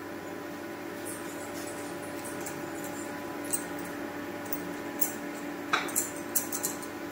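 Steady hum of an induction cooktop heating a pan of vegetables. Over it come light clinks and taps from bangles and vegetable pieces as a hand pushes onion and tomato chunks around in the pan, with a quick cluster of clinks near the end.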